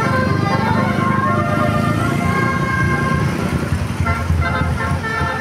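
Basuri "telolet" multi-tone bus horn playing a tune: several horn notes sound together and change pitch in steps. A bus engine rumbles underneath.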